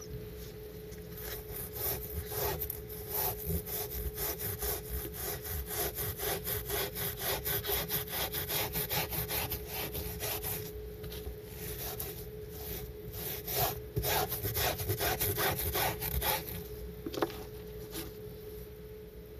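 Miniature scrub brush rubbing a soapy carpet square in quick back-and-forth strokes, a rhythmic rasp of several strokes a second while the soap is worked into a lather. The strokes stop near the end, leaving a few single scrapes.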